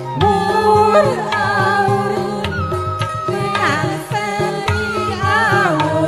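Live music: a wavering, sliding melody line over a steady hand-drum beat.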